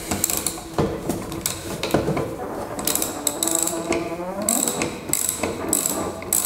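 Socket ratchet clicking in repeated short back-and-forth strokes as a 9/16 bolt clamping a lawn tractor's steering-shaft sleeve is loosened, with a second wrench holding the other side.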